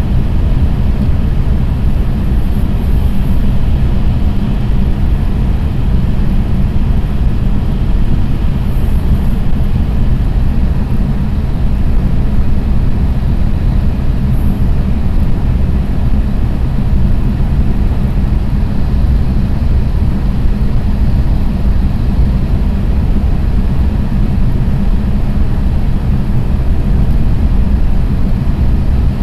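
Steady, loud running noise of a JR East E6 series Shinkansen cruising at about 307 km/h, heard from inside the passenger car: a deep, even rumble with a low hum.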